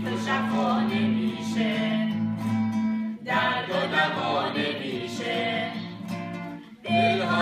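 Persian worship song sung by a small group, with an acoustic guitar strummed beneath it. The singing breaks briefly between phrases about three seconds in and again near the end.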